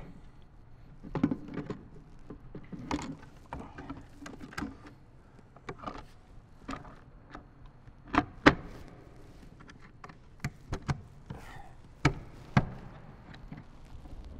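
Hard plastic clicks and knocks from a Lowrance HOOK2 7 fish finder being handled on its gimbal bracket: the mounting knobs turned and the display tilted and seated. The loudest knocks come in two pairs, about eight and about twelve seconds in.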